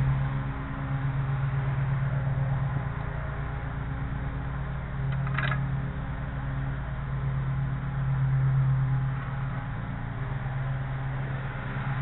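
A steady low mechanical hum, with a single short metallic clink about five and a half seconds in as the aluminum launcher's fittings are handled.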